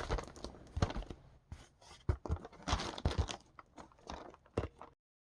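Loose, wrinkled film covering on a foam RC-plane elevator crinkling and crackling as it is handled, in irregular crackles. The covering sits as a loose jacket over the foam. The crackling cuts off abruptly near the end.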